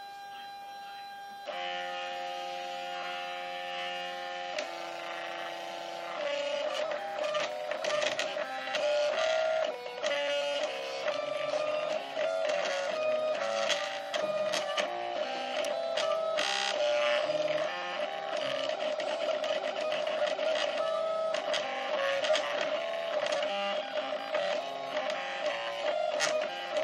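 Stepper motors of a Zen Toolworks 7x7 desktop CNC mill driving a pen plotter head across paper. They give a whining, musical string of tones that jump in pitch every fraction of a second as the axes change speed and direction, with light ticking over them.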